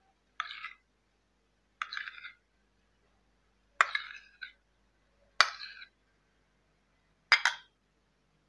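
Metal spoon clinking and scraping in a small steel bowl as curd is scooped out: five short clinks, a second or two apart.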